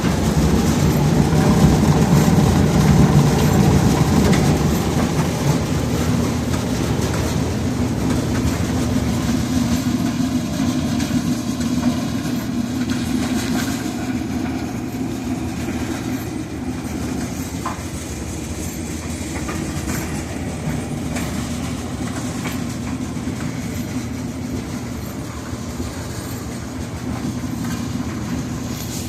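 Clothes dryer running, its drum tumbling with a steady rumble and hum. It is a little louder for the first few seconds, then settles.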